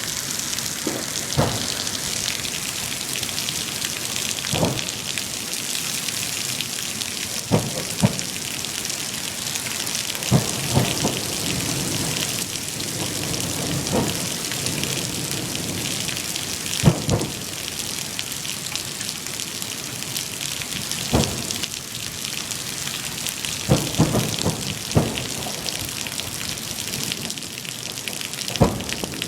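Heavy rain pouring steadily, with about a dozen short booms of fireworks bursting at irregular intervals.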